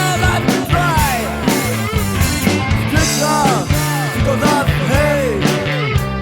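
Rock music: a full band with drums and bass under a lead line that swoops up and down in pitch in short repeated phrases.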